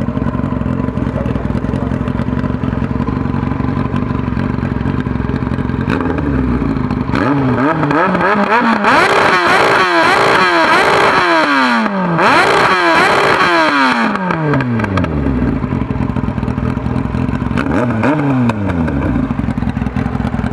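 Yamaha R1 inline-four engine through a Delkevic aftermarket racing exhaust, idling on the stand, then free-revved in a run of quick throttle blips from about six seconds in until about fifteen. One more rev comes a few seconds later, and then it settles back to idle.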